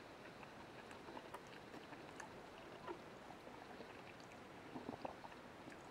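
Near silence: room tone with a few faint scattered clicks and a brief faint sound about five seconds in.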